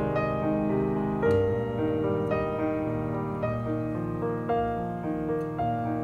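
Background piano music, a gentle melody of sustained notes changing about every half second.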